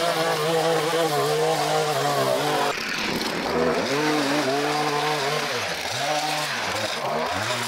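Gas string trimmer engine running. It holds a steady pitch at first, then after a sudden break the pitch dips and rises again and again as the trimmer is revved and cuts through grass.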